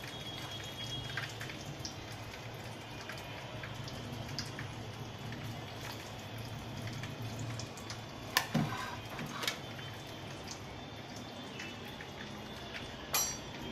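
Quiet kitchen background with a steady low hum and faint scattered crackling, as fried cutlets are set down on a serving plate. A few light clicks and taps of the plate and cutlets come about two-thirds through and again near the end.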